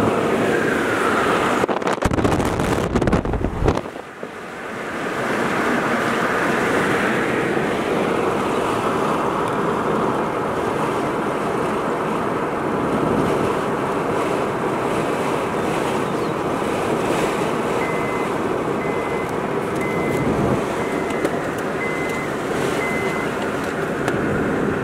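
Car driving at road speed, heard from inside the cabin: a steady rush of tyre and wind noise. About two seconds in comes a couple of seconds of heavy low rumbling, and near the end a faint short beep repeats about once a second for several seconds.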